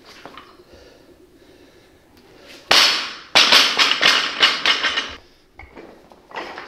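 Barbell loaded with rubber bumper plates dropped onto the lifting platform: one loud bang, a second hit as it bounces, then a couple of seconds of rattling and clattering as the plates and collars settle.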